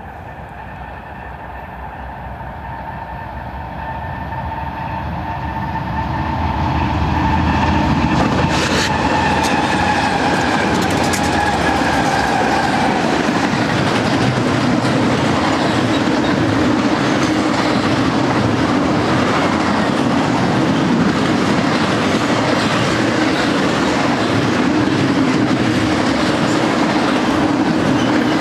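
BNSF double-stack intermodal train led by GE ES44C4 diesel locomotives. The locomotives grow louder over the first several seconds and drop in pitch as they pass about eight seconds in. After that comes a steady rumble and clickety-clack of double-stack well cars rolling by on the rails.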